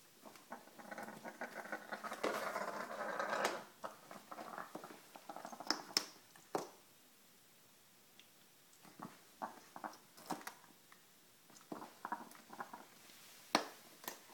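African grey parrot tugging and flipping a rubber-backed kitchen rug across a tile floor: a dense scraping rustle for the first few seconds as the rug is dragged, then scattered clicks and taps of beak, claws and rug edge on the tile.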